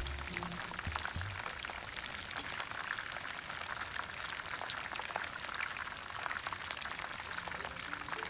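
Battered maitake mushrooms frying in hot oil: a steady, dense sizzle and crackle.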